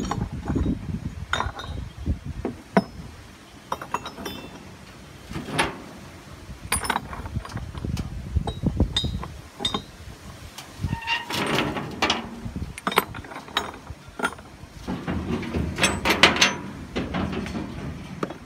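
Bronze castings clinking and knocking against each other and the wooden crate as they are shoved into place by hand: an irregular clatter of sharp clicks, busiest near the middle and again toward the end.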